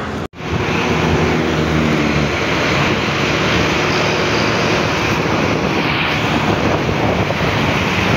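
Motorcycle engine running under way, with heavy wind noise on the microphone from the pillion seat and road traffic around.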